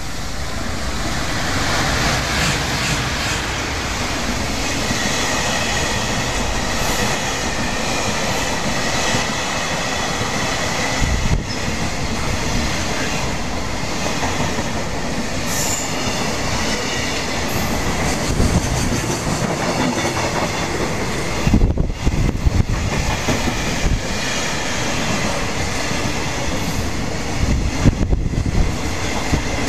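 Freight train of container wagons, hauled by a JR Freight EF200 electric locomotive, passing close by at speed: a continuous rumble and clatter of wheels on rail. A high ringing tone runs through the first half, and several low thumps come in the second half.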